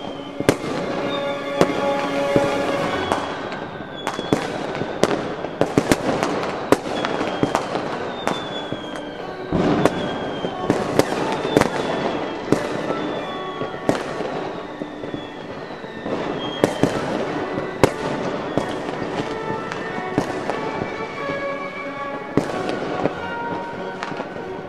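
Aerial fireworks bursting in quick succession, sharp bangs about one or two a second, over steady background music.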